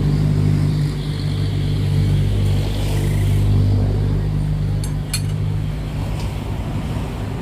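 An engine running steadily with a low hum that eases off a little near the end, with a couple of sharp metallic clinks about five seconds in.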